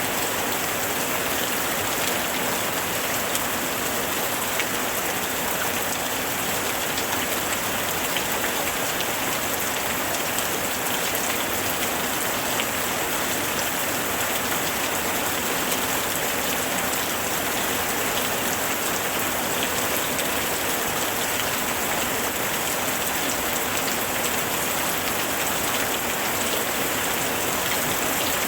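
Heavy rain falling steadily on leaves, a dense, even hiss of countless drops.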